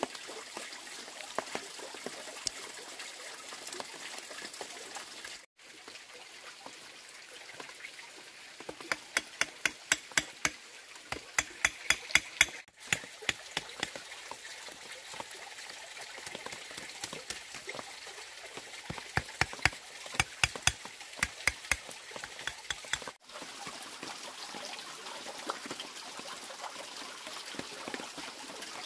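Water trickling steadily, with two runs of sharp knocks, a few a second, from split bamboo slats and stakes being worked into a woven barrier.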